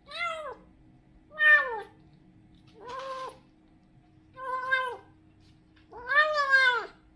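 A kitten meows five times while eating, about once every second and a half. Each meow falls in pitch at its end, and the last one is the longest.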